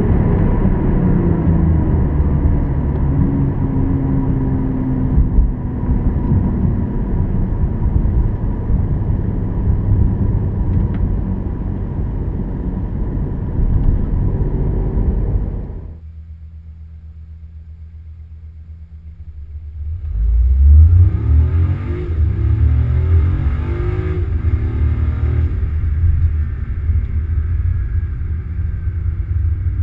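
BMW i8's turbocharged three-cylinder hybrid drivetrain: the car is driven with engine and road noise, its engine note falling at first. About sixteen seconds in it drops to a low, quiet hum, as if stopped. About twenty seconds in it pulls away hard, the engine note rising sharply, then settles into steady driving noise.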